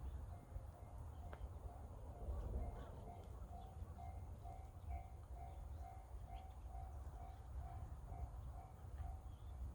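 Railway level-crossing warning bell ringing in evenly spaced dings of one steady pitch, about two and a half a second, faint at first and louder from about three and a half seconds in, the signal that a train is approaching. Low wind rumble on the microphone underneath.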